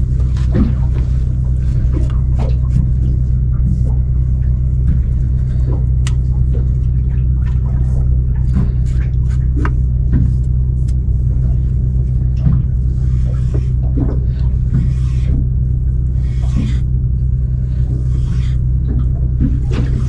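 Boat engine running steadily with a deep, even hum. Frequent light knocks and scrapes are scattered over it.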